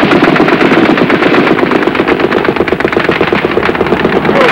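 Sustained machine-gun fire: rapid shots in an unbroken stream, with a steady drone beneath.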